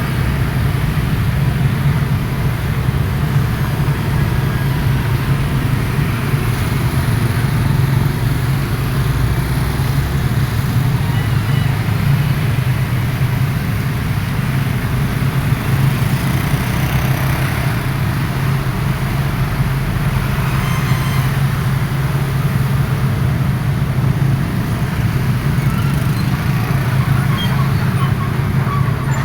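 Excavator diesel engine running steadily under work, a constant low drone that holds the same level throughout.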